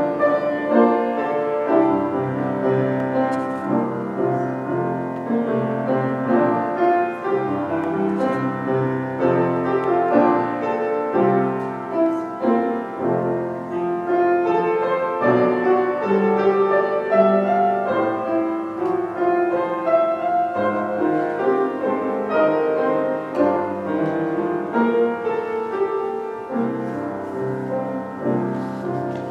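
Piano postlude: a slow, classical-style instrumental piece played on piano, with many notes sounding together.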